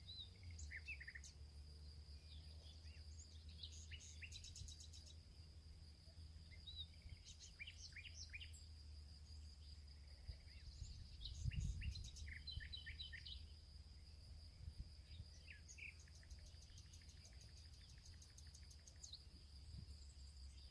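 Several small songbirds chirping and trilling in short scattered phrases over a steady, high insect buzz, all faint. Under them is a low rumble that swells briefly about 11 seconds in.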